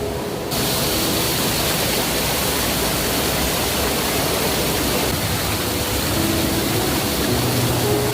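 Waterfall rushing: a loud, even roar of falling water. It grows suddenly louder and fuller about half a second in.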